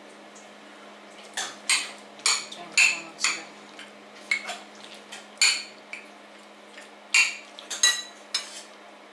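Cutlery clinking and scraping against a plate while pasta is dished out: a dozen or so short, sharp clinks at irregular intervals, starting about a second and a half in.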